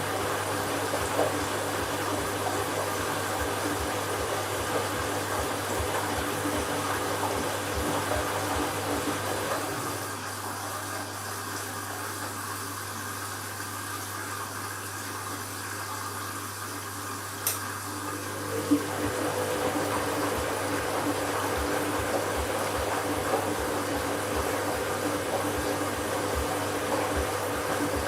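Candy washing machine running an empty bleaching wash: water running and splashing in the drum over a steady hum. It quietens about ten seconds in, then comes back after a couple of sharp clicks.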